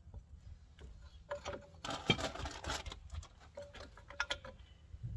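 Hydraulic bottle jack being lowered and taken out from under the suspension: scattered metal clicks and knocks, with a busier run of clatter about two seconds in that lasts about a second.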